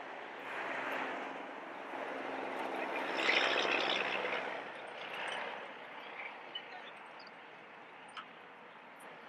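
An engine passing by, a broad rushing noise with a low hum that swells to its loudest a little past three seconds in and then fades away.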